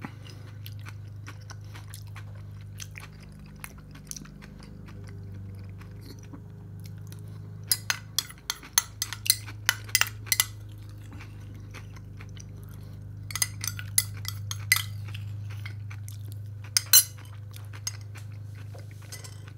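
A metal spoon clinking and scraping against a plastic cup, with chewing of a soft, chunky food between spoonfuls. Dense runs of sharp clinks come about eight seconds in, again around thirteen to fifteen seconds, and once more near seventeen seconds, over a steady low hum.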